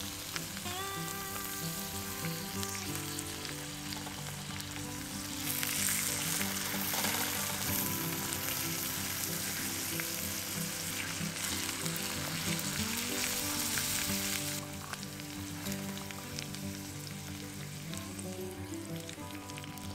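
Bone-in pork steak sizzling as it fries in a pan; the sizzle grows much louder about five seconds in and drops back about fifteen seconds in. Soft background music runs underneath.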